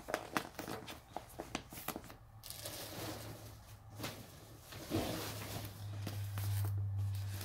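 Rummaging in a shopping bag: rustling and crinkling with small clicks and handling noises. A steady low hum comes in about five seconds in.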